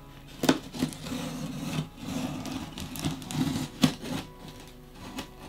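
A cutter blade slicing the packing tape along the top seam of a cardboard box, with rough scraping and rubbing of the cardboard and two sharp clicks, about half a second in and just before four seconds.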